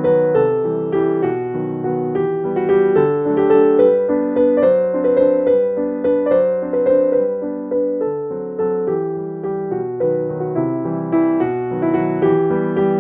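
Background piano music, a gentle run of notes played at an even pace.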